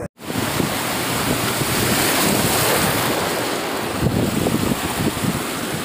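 Seawater surging and splashing over shoreline rocks, with wind buffeting the microphone.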